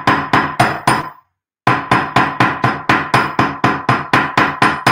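Rapid hammer blows on 14-gauge craft wire lying on a small steel bench anvil, about four strikes a second, each with a short metallic ring. The strikes stop for about half a second about a second in, then resume at a steady pace. The blows flatten the wire link, texturing and work-hardening it.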